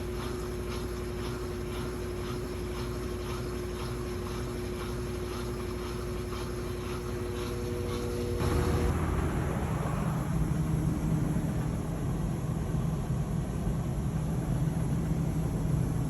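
GE top-load washer running, with its lid lock engaged so it can drain and spin: a steady motor hum with a faint, even ticking. About eight seconds in the sound changes abruptly to a louder, lower hum.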